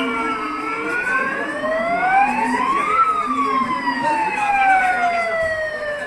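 Siren wailing in a slow rise and fall: falling at first, climbing for about two and a half seconds to a peak near the middle, then falling again.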